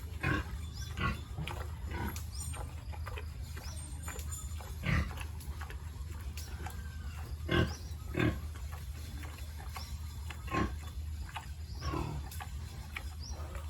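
Pigs calling in short, separate grunts, about eight of them spread through, over a steady low hum.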